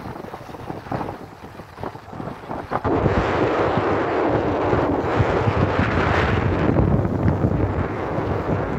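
Wind buffeting the microphone, a rough rumbling roar that gets much louder about three seconds in and stays strong.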